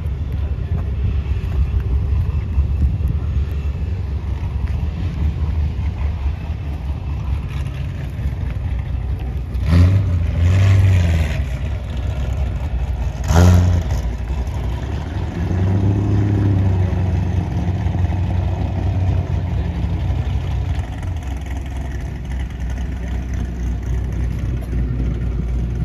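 Car engine running with a steady low rumble, revved sharply twice, about ten and thirteen seconds in, with a softer rev a few seconds later.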